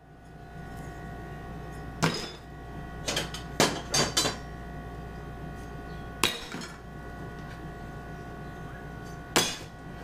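Removed car parts from the hood latch delete, mostly metal brackets and bolts, thrown one at a time into a plastic trash can, each landing with a sharp clank or clatter. There are about seven hits: one about two seconds in, a quick cluster around three to four seconds in, another past six seconds and a last one near the end.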